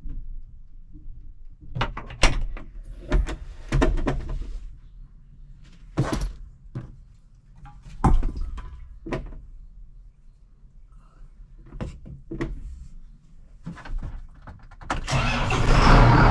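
A series of sharp knocks and clunks from a tractor cab door and fittings. About 15 seconds in, a John Deere tractor's diesel engine starts and keeps running with a steady hum.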